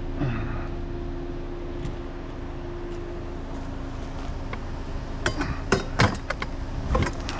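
Vehicle running with a steady hum. Several sharp clinks and knocks come about five to seven seconds in.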